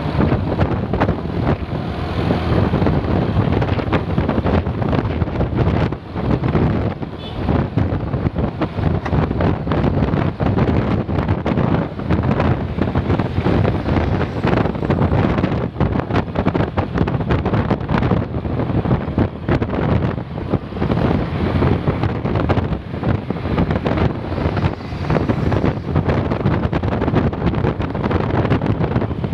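Wind buffeting the microphone over the low, steady rumble of a vehicle.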